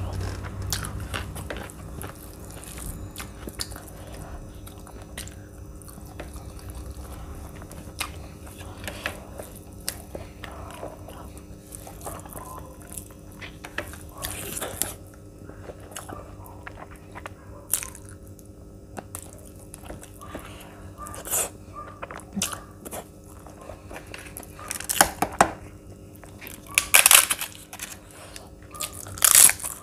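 A person eating vegetable biryani and paneer curry with her hand, with chewing, mouth clicks and smacks. Several louder, sharp bursts come near the end.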